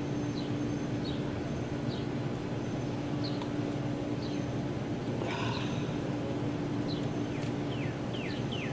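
Birds chirping in short, falling chirps, a few each second and quicker near the end, over a steady low hum. A brief rustling noise about five seconds in.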